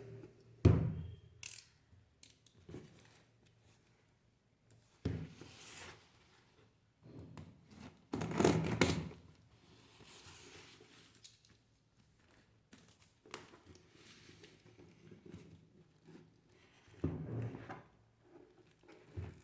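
A delivery package being handled and opened: irregular bursts of scraping, tearing and rustling packaging with small clicks between, the longest burst about eight seconds in.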